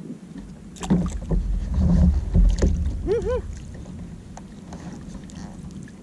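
Knocks and clatter of gear being handled on a sit-on-top fishing kayak, with a loud low rumble between about one and three seconds in. A short two-part squeak follows about three seconds in, then a few faint ticks.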